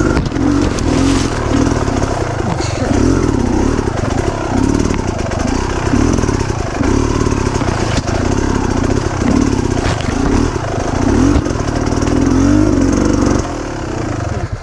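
Off-road dirt bike engine revving up and down over and over as the throttle is worked on a tight woods trail. The engine note eases off about a second before the end.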